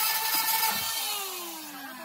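Corded electric orbital sander running on a metal part, switched off about a second in and winding down, its whine falling steadily in pitch.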